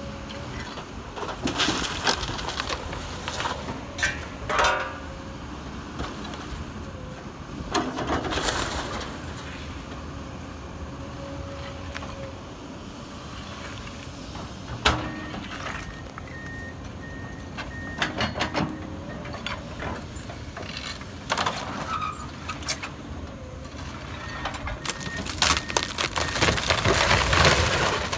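Komatsu excavator's diesel engine running while its bucket tears into a house, with repeated cracks and crashes of breaking wood and debris, heaviest near the end.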